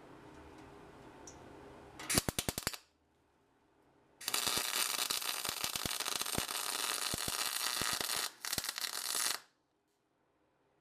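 Welder arc crackling on sheet steel, with the spit and crackle typical of MIG welding. It starts with a short tack of under a second about two seconds in, then runs as a continuous weld of about five seconds with a brief break near its end, and cuts off suddenly.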